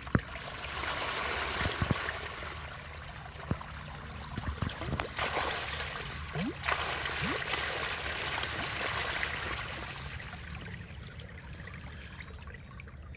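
Groundwater discharged by two Liberty sump pumps pouring out of the outlet pipe, a steady rushing trickle that swells and eases, with a few sharper splashes.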